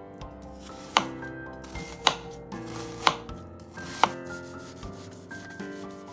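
Kitchen knife chopping through a peeled daikon radish and hitting a wooden cutting board: four sharp chops about a second apart.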